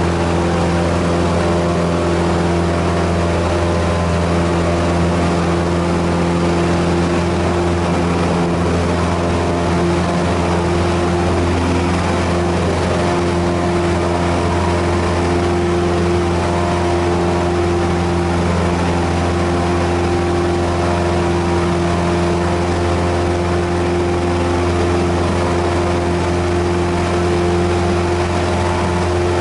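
Cessna 172's piston engine and propeller running steadily at high power in the climb after takeoff, heard from inside the cockpit as a loud, even drone with several steady tones and no change in pitch.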